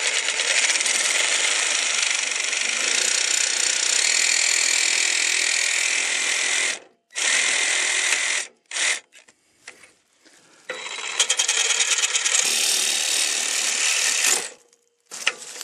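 Ridgid reciprocating saw cutting through a rusted steel exhaust pipe. It runs for about seven seconds, stops, gives two short bursts, then runs again for nearly four seconds. Its user thinks the blade is already worn out.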